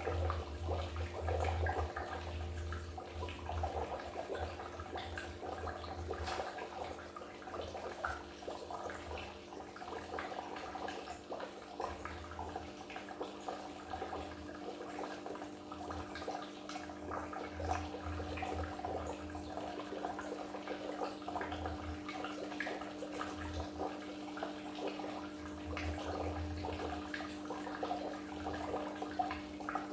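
Goldfish aquarium water running and splashing continuously, with a steady low hum underneath and a low rumble that swells and fades every second or two.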